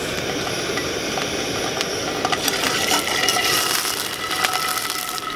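Garlic sizzling in olive oil in a frying pan over a hissing camp-stove gas burner. From about two seconds in the crackling grows denser, with clicks and scrapes of a wooden spatula stirring in the pan.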